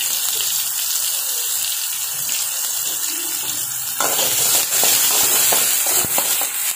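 Shallots and whole spices sizzling in hot oil in an aluminium pan. About four seconds in, a spatula starts stirring them, scraping against the pan with quick clicks over the sizzle.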